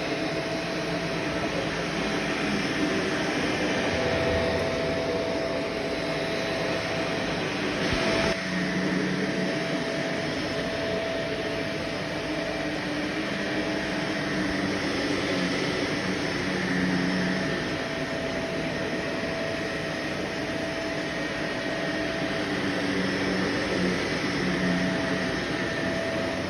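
Vacuum cleaner running steadily, a constant hiss with a steady tone, its lower hum shifting a little as it is worked. A single knock comes about eight seconds in.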